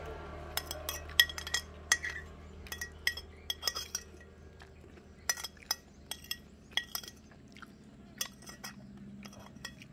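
Metal spoon clinking and scraping against a glass plate while scooping up the last of a meal: a quick, irregular run of short ringing clinks that grow sparser in the last few seconds.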